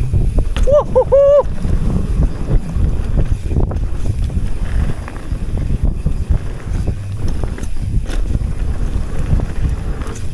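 Wind buffeting the camera microphone and a mountain bike's tyres rolling fast over packed dirt, with the bike rattling over the bumps. About a second in, a short wavering pitched tone sounds briefly.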